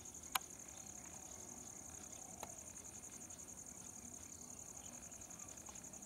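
Faint, steady, high-pitched trill of insects, rapidly pulsing. A sharp click about a third of a second in is the loudest sound, and a fainter click follows about two and a half seconds in.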